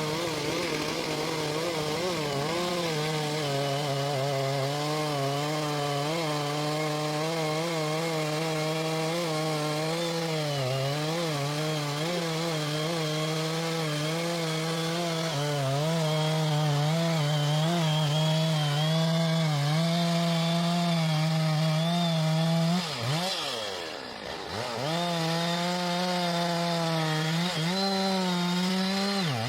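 Chainsaw running under load, cutting through wood, its engine note wavering as the chain bites. About 23 seconds in the engine drops briefly and revs back up, and its pitch shifts again near the end.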